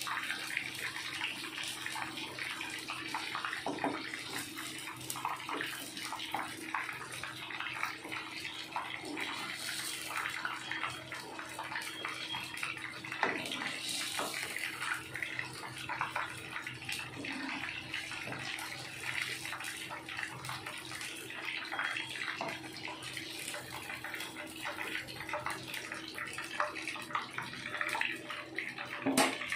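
Masala-coated fish pieces deep-frying in hot oil: steady sizzling, dense with small crackles.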